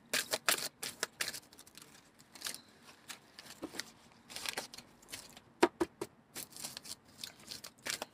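A deck of tarot cards being shuffled by hand: a run of quick, irregular papery flicks and taps, with one sharper knock a little past halfway.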